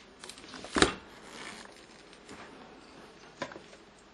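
Bosch Ascenta dishwasher door being unlatched and opened at the end of a cycle: one heavy clunk about a second in, with a few lighter clicks before and after.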